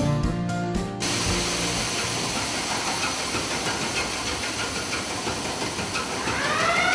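Background music stops about a second in, giving way to a steady hiss. Near the end a pitched whine rises and then slowly falls.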